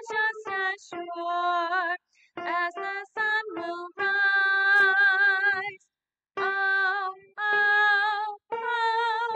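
A solo soprano voice singing the soprano line of a two-part choral arrangement without accompaniment. It sings in short phrases with brief silent gaps, and its longest note, held with vibrato, comes about halfway through.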